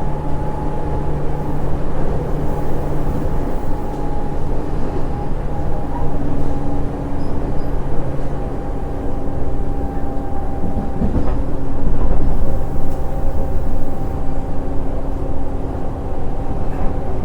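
Train running steadily, a continuous rumble with a low, steady hum over it that swells slightly about two-thirds of the way in.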